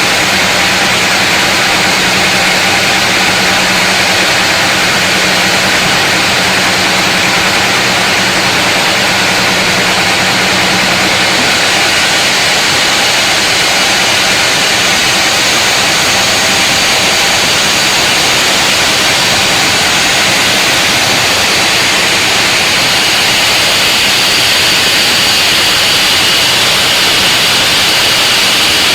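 Power saw running steadily while cutting lengthwise through a large mahogany log, a loud, even rushing noise with a low hum that fades out about a third of the way in.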